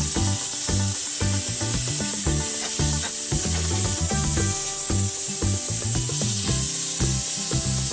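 Background music with a bouncing bass line and melody, over a steady high hiss.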